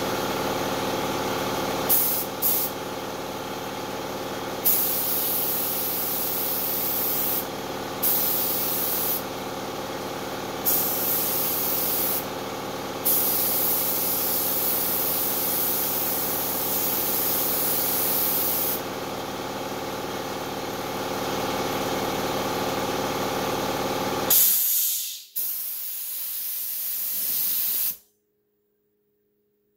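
Small gravity-feed spray gun spraying primer onto an RC car body: a hiss of air and paint that switches on and off every few seconds as the trigger is worked, over the steady hum of an air compressor. The hum stops near the end, and one last burst of spray cuts off suddenly.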